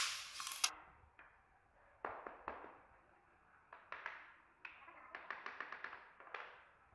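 Wooden floor planks being knocked into place with a tapping block: sharp separate taps in small irregular groups, the loudest at the very start, and a quick run of about eight taps a little after the middle.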